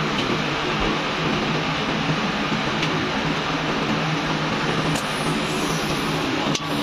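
Steady running noise of factory machinery, an even hiss over a constant low hum, with a few faint clicks and a brief dip near the end.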